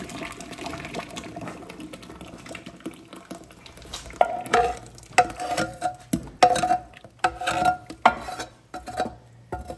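Thick mole sauce sliding out of a clay cazuela into a stainless steel pot, at first a soft steady sound. From about four seconds in, a small aluminium saucepan scrapes and knocks against the cazuela and the pot, making a string of short ringing metal clanks.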